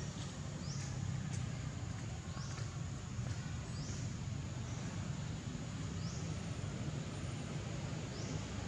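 Outdoor forest ambience: a bird repeats a short, high, rising call every second or two over a steady low rumble.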